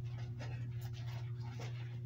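Soft, quick rustling close to the microphone, a few strokes a second, as skeins of yarn and their packaging are handled. A steady low electrical hum runs underneath.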